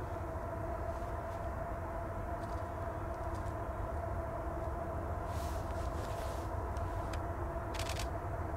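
A distant train's locomotive drone: a steady low rumble and hum, with a few brief faint rustles in the second half.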